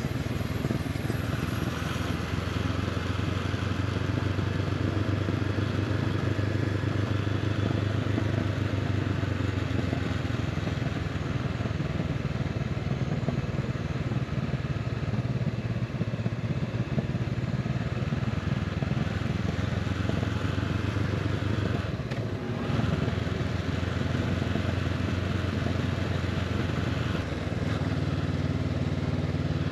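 Honda CB500X's parallel-twin engine running steadily as the motorcycle rides along. The engine note dips briefly about two-thirds of the way through, and its pitch shifts near the end.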